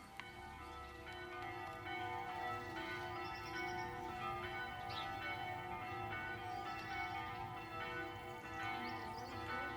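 Church bells of a chapel ringing, many overlapping tones struck again and again, growing louder over the first couple of seconds.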